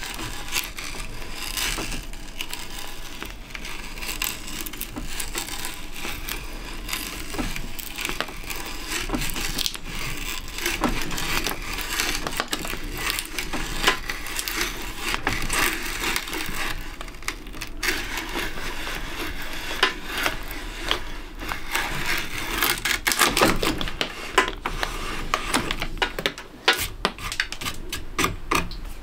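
Auger bit boring a hole through plywood: a continuous crackling and crunching as the wood is cut and chips curl up the flutes. Sharper cracks and clicks come thick and fast in the last few seconds as the bit breaks through.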